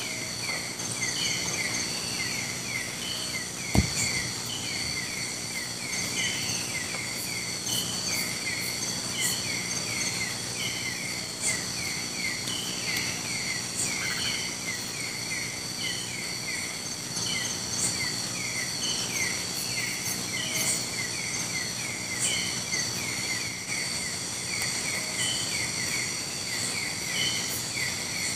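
Night chorus of tropical forest insects: a steady high-pitched trilling with clusters of short chirps repeating throughout. There is a single sharp click about four seconds in.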